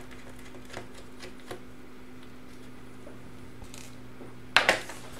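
Faint light clicks of a screwdriver backing out a small screw from a laptop LCD panel's mounting bracket, over a steady low hum, then a sharp knock and brief rattle near the end.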